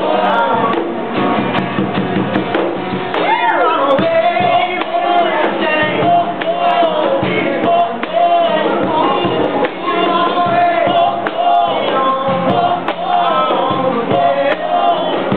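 Live band playing an acoustic song, with a man singing over guitar and drums.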